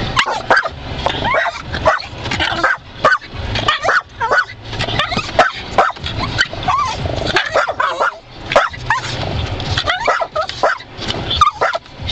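Dog barking and yipping over and over in quick, irregular runs inside a car as it snaps at the windshield wipers sweeping back and forth.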